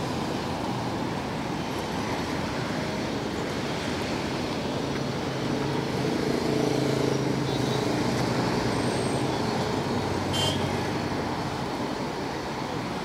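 Steady road traffic noise, growing louder in the middle as a vehicle's engine passes, then easing off again.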